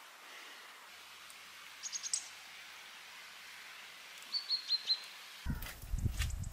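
A small bird calling twice, each call a quick run of about four short, high chirps, over a steady outdoor hiss. Near the end, low thumps and clicks of footsteps begin.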